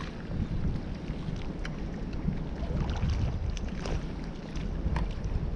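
Strong wind buffeting the microphone, a steady low rumble, with scattered light clicks over it.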